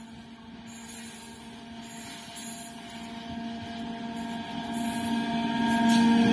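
WAG-12B electric freight locomotive approaching with its train: a steady electrical hum over rising rail and running noise that grows steadily louder as it nears.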